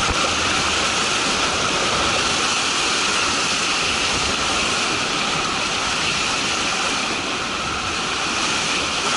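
Steady rush of whitewater in a big Colorado River rapid, with waves breaking against the inflatable raft's tube.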